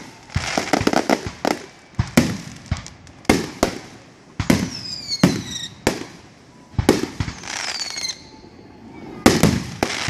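Aerial fireworks shells bursting in quick succession: about a dozen sharp booms, crackling after some bursts, and several whistles that fall in pitch.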